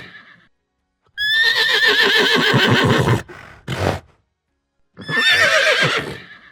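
Horse whinnying twice, each neigh a quavering call about two seconds long, with a short noisy sound between them.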